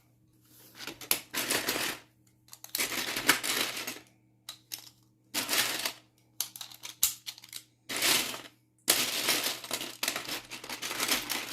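Loose plastic Lego pieces rattling and clicking as a hand rummages through them, in several spells of clatter with short pauses between.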